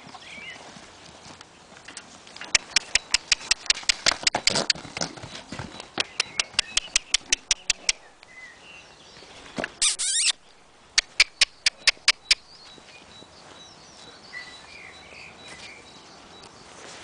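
A horse's hoofbeats come in two quick runs of sharp strikes, about four a second, as it canters round the pen. A short loud rush of noise comes about ten seconds in, and birds chirp faintly.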